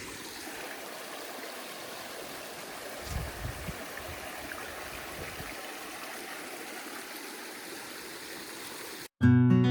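A small running creek, a steady even rush of water, with a few low thumps about three seconds in. Near the end the water cuts off abruptly and acoustic guitar music starts.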